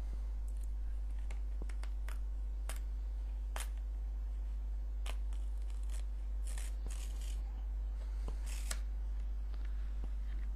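Card sheet being peeled apart by hand: scattered small paper crackles and clicks, with a few longer rustling peels about two-thirds of the way through. A steady low hum runs underneath.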